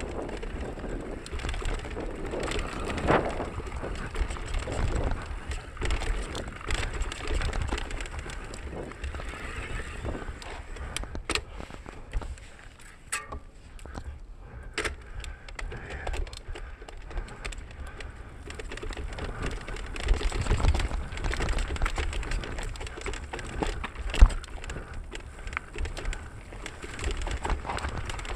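Mountain bike riding fast down a rough dirt trail: tyres rolling and crunching over dirt and scattered wood debris, with the bike rattling and a string of sharp knocks as it hits bumps; one knock late on is the loudest.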